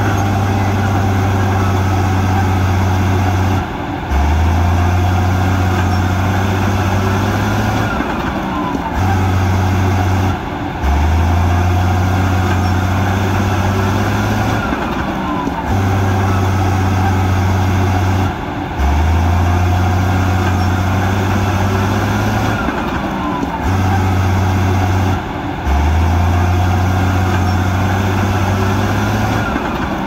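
Bulldozer's diesel engine running hard, its low drone dipping briefly every few seconds in a repeating cycle, with a falling whine several times.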